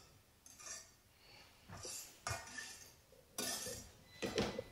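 Cooking utensil clinking and scraping against a pot, several separate knocks and scrapes.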